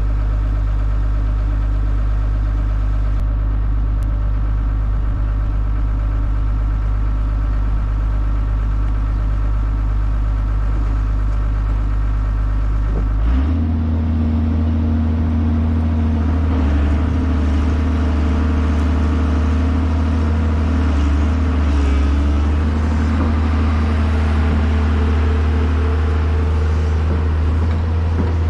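Kobelco SK250 LC excavator's diesel engine running steadily; about halfway through its note steps up and holds at the higher speed.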